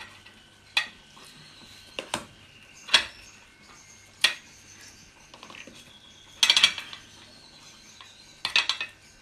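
Metal spoon clinking and scraping against a stainless steel ring mould while crushed potato is spooned and pressed into it: scattered sharp clinks, with short rattling runs about two-thirds of the way in and near the end.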